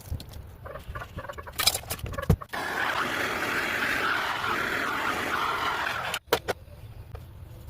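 Clicks and scraping of a copper pipe fitting being worked on, then the steady hiss of a plumbing torch flame for about four seconds while a copper elbow joint is soldered; the hiss starts and stops abruptly and a couple of sharp clicks follow.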